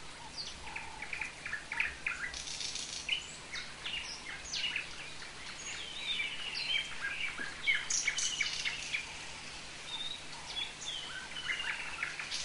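Several birds chirping and calling in quick, overlapping notes and short whistled slurs, over a steady hiss of rain.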